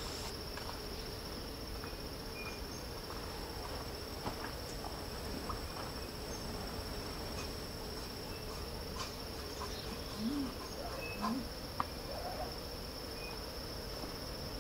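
Steady high-pitched drone of insects in tropical mountain rainforest, with a lower steady hum beneath it. Scattered soft clicks and rustles come through, a little stronger about two-thirds of the way in.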